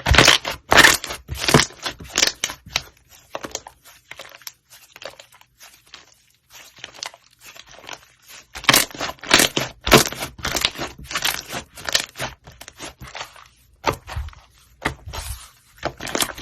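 White slime with brown balls mixed in, being worked and pressed so it gives off quick runs of crunchy crackling pops. The crackling thins out for a few seconds in the middle, then comes back dense.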